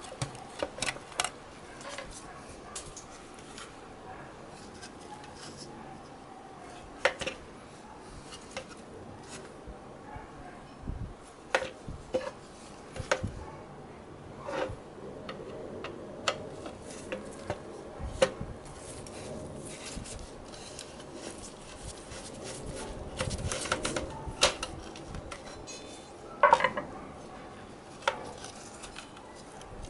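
Irregular clicks and clinks of a digital TV box's sheet-metal case and circuit board being handled and probed, with a few louder knocks.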